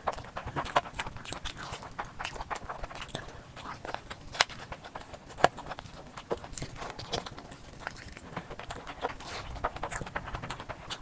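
Close-miked eating: irregular wet chewing and mouth smacks, several a second, with two sharper, louder bites or crunches a little after four and five seconds in.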